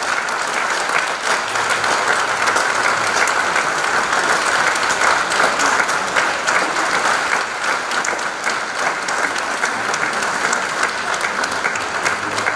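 Sustained applause in a concert hall, many hands clapping at a steady level throughout.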